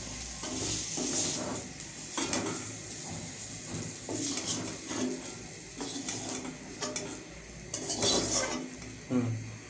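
A cooking utensil scraping and clinking against a frying pan as lightly fried potol (pointed gourd) pieces are lifted out of the oil, in irregular strokes, with faint sizzling underneath.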